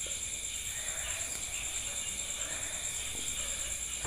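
Crickets trilling steadily at night, several high-pitched tones held without a break.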